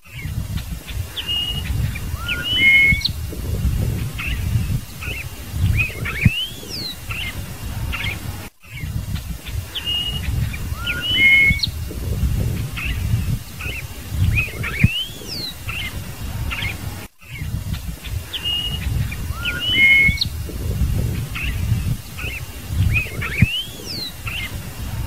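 Scarlet-headed blackbird (cardeal-do-banhado) singing: clear whistled notes and short upward-sweeping calls over a steady low rumble. The same phrase repeats about every eight and a half seconds, with a brief cut between repeats, as a looped recording.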